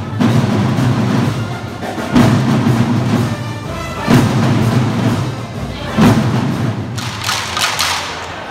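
Marching band of brass and drums playing in the street, with a heavy drum beat about every two seconds under sustained low brass notes. Near the end a large group of drummers plays.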